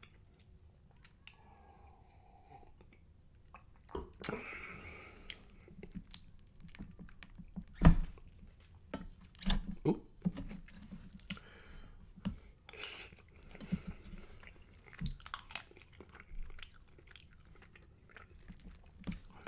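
Close-miked chewing and crunching of sticky spicy rice with crisp browned bits, with a wooden spoon scraping and knocking against the bottom of a metal frying pan; the loudest knock comes about eight seconds in.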